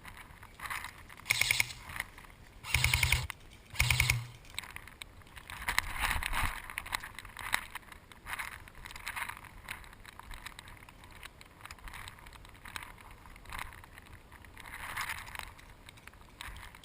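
Three short bursts of rapid automatic airsoft gun fire close by, the longest about half a second, within the first few seconds, followed by quieter uneven noise of movement.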